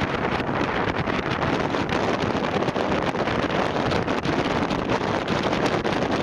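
Strong tropical-storm wind buffeting the microphone: a loud, steady roar of noise broken by frequent short pops from gusts hitting the mic.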